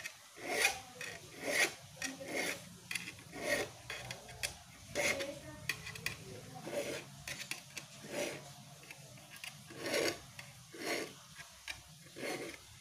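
Steel hand file scraping across the teeth of a wood handsaw in repeated strokes, about one a second: the saw's teeth being sharpened by hand.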